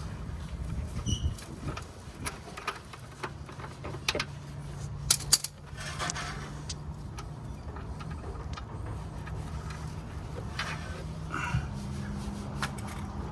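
Metal hand tools clicking and clinking irregularly against metal as a bolt on the engine mount bracket is worked loose, with two sharp clanks about five seconds in, over a steady low hum.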